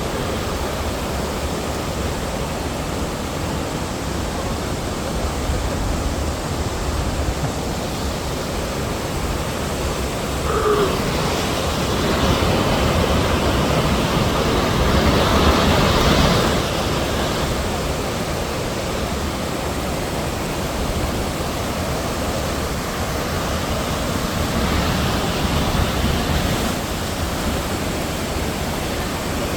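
Naso no Shirataki waterfall: a steady rush of falling water that swells louder for several seconds in the middle.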